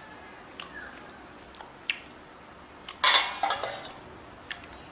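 A stainless steel plate being handled: a few light clicks, then a loud ringing clatter of steel about three seconds in.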